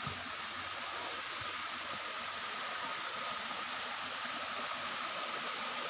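Steady rush of a mountain stream's flowing water, an even hiss with no breaks.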